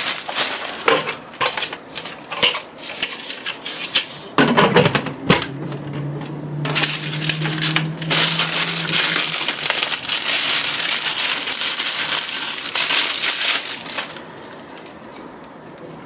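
Clear plastic packaging crinkling and rustling as it is handled and opened. It comes in short bursts at first, then runs as a dense steady crinkle before dying down near the end.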